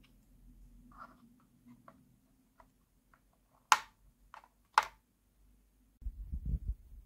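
Small plastic toy dollhouse furniture being handled and set into a plastic dollhouse room: a few light taps, then two sharper plastic clicks about four and five seconds in. A low rumbling with thumps comes in near the end.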